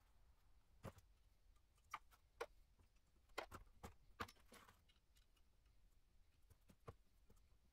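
Scattered light clicks and knocks of parts and tools being handled on a bare diesel cylinder head, about eight in all and loudest through the middle few seconds, over a quiet room.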